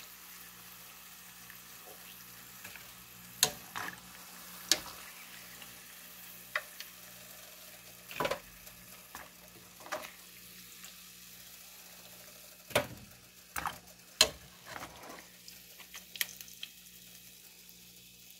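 Tortilla pieces frying in a pan of hot oil, a faint steady sizzle, broken by scattered sharp clicks of metal tongs against the pan as the pieces are turned and lifted out.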